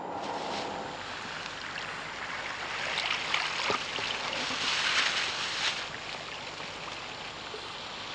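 Shallow seawater splashing and sloshing around rubber boots as someone wades and gathers seaweed, loudest in the middle few seconds. It comes after the hum of a moving car, which fades within the first second.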